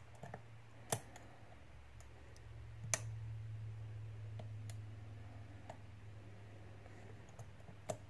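Small metallic clicks of a hook pick working the pins inside a Master Lock 410 LOTO padlock under light tension, the pins springing back rather than setting: sharp clicks about a second and three seconds in, with fainter ticks between. A faint low hum runs through the middle seconds.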